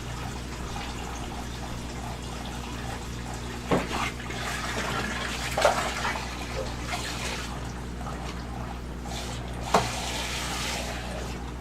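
Aquarium water running and splashing as excess tank water is drained, with three sharp knocks and a steady low hum underneath.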